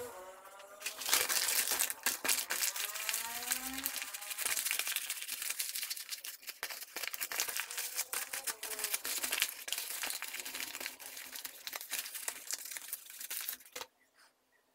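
A sheet of paper crumpling and crinkling as it is rubbed over a chisel blade to wipe it clean. The crackling runs steadily and stops abruptly about a second before the end.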